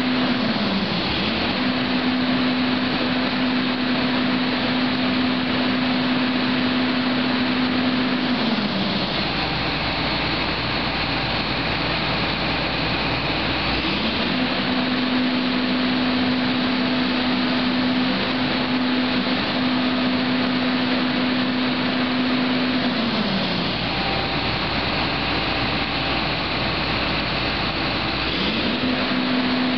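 MKT V-5Esc excavator-mounted side-clamping hydraulic vibratory hammer vibrating a steel sheet pile, giving a steady hum. The hum winds down and stops about nine seconds in, spins back up around fourteen seconds, winds down again around twenty-three seconds and starts once more near the end. A steady machine drone runs underneath.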